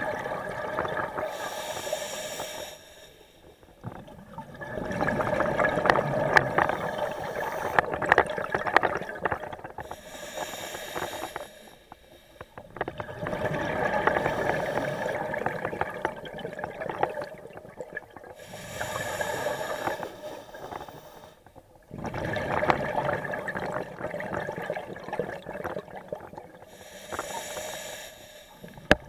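Scuba diver breathing through a regulator underwater: a short hiss on each inhale, then several seconds of bubbling on the exhale, about one breath every eight or nine seconds.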